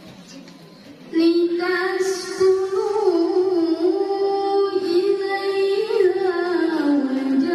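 A female qariah's melodic Quran recitation into a microphone: after a brief lull, her voice enters about a second in and holds one long, ornamented line with wavering turns, sliding lower near the end.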